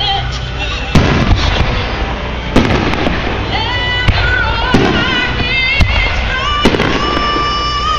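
Fireworks exploding in a string of sharp bangs, about one every half second to second. Music with a singer holding wavering notes plays throughout.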